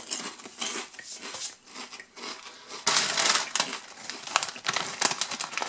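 Mouthful of three Lorenz Crunchips potato crisps being chewed, an irregular run of crunching crackles. The crisp bag crinkles as it is handled about three seconds in.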